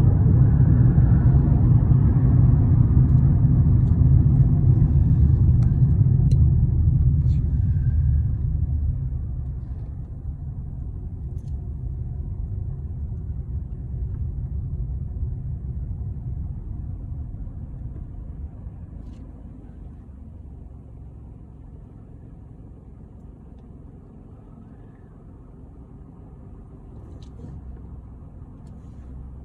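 Low, steady rumbling noise, loud for the first eight seconds or so, then dropping away to a quieter rumble.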